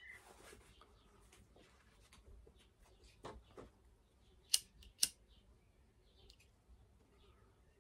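A pocket lighter struck twice, two sharp clicks about half a second apart, lighting a small flame held to the end of a cord, with faint handling sounds of the cord just before.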